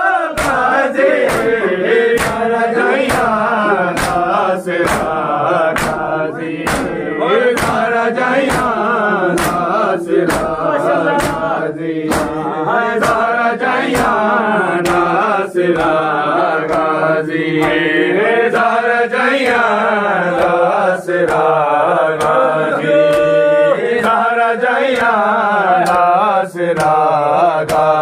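Nauha, a Shia Muharram lament, chanted by a male reciter, over a steady, even beat of matam: open hands striking chests in unison.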